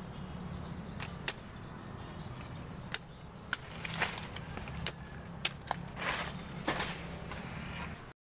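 Machete blade cutting into the fruit-bunch stalk of a sugar palm: about ten sharp, irregular knocks over a steady low hum.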